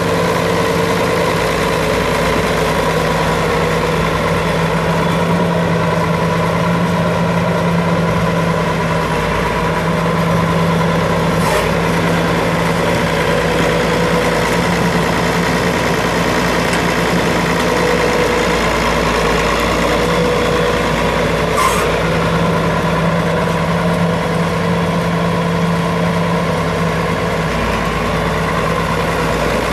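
1972 Allis-Chalmers 200 tractor's 4.9-litre six-cylinder diesel engine running at a steady speed as the tractor drives about. Two short clicks come about ten seconds apart, near the middle.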